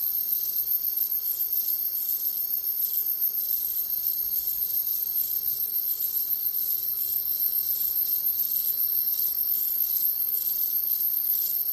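Night insect chorus of crickets, a steady, high-pitched trilling that keeps on without a break.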